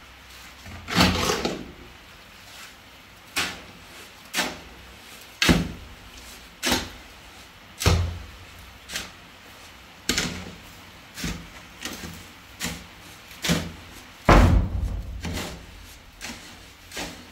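A shovel blade scraping and chopping through wet cement mix in a metal wheelbarrow, about one stroke a second, each stroke a short scrape and thud as the blade hits the barrow pan.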